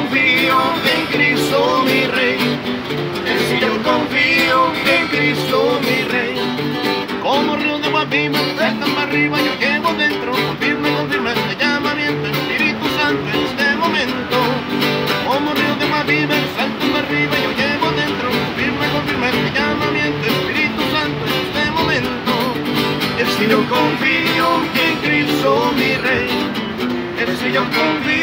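Two acoustic guitars playing a cumbia: strummed chords in a steady rhythm over a repeating bass line, one of them a twelve-string.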